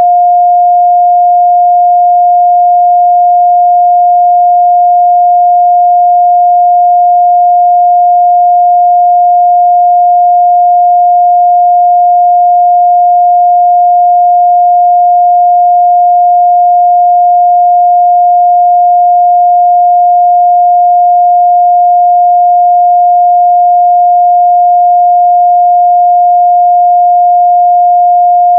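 A pure 708 Hz sine-wave test tone, loud and perfectly steady, with no other sound.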